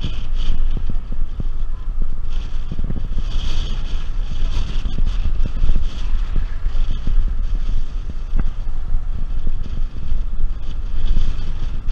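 A car driving along a road, recorded by a camera mounted outside on its hood: a steady, heavy wind rumble on the microphone over the car's running noise.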